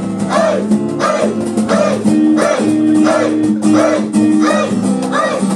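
Acoustic guitar strumming chords in a steady rhythm, about two strokes a second. The chord changes about two seconds in and again near the end.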